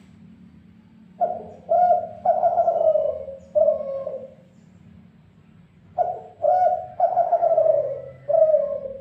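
A dove, the kind known locally as dekuku, cooing: two phrases of four coos each, about five seconds apart, the third coo in each long and falling in pitch.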